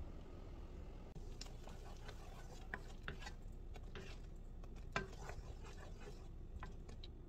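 Wooden spatula stirring thick cooking strawberry paste in a nonstick pan: soft scraping with a few light knocks of wood against the pan, the sharpest about five seconds in.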